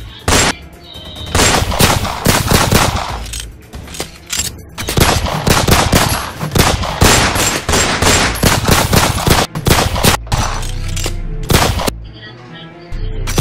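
Rapid gunfire: bursts of many shots in quick succession, with a short break about four and a half seconds in and the shots thinning out after about ten seconds.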